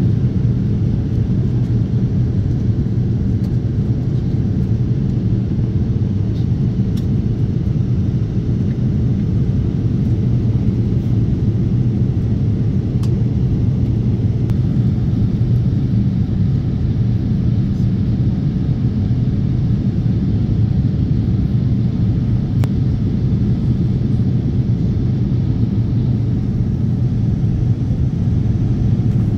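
Steady low rumble of jet airliner cabin noise, engines and airflow heard from a passenger seat by the window, as the plane descends towards landing.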